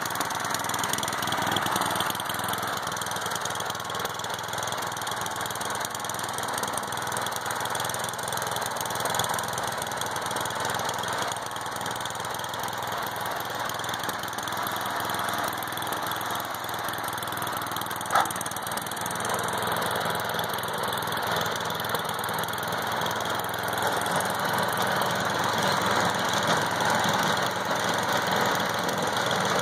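Snapper 824 two-stage snowthrower's small gasoline engine running steadily. A single sharp click is heard partway through.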